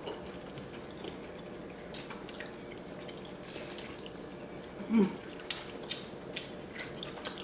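Close-miked eating sounds: wet chewing and lip smacks with scattered small clicks as seafood-boil shrimp and crab are eaten by hand. A short 'mm' comes about five seconds in.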